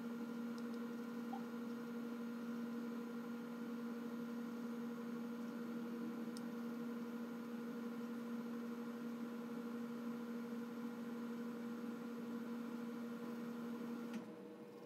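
Steady electrical hum, a low buzz with a higher overtone, that cuts off suddenly near the end.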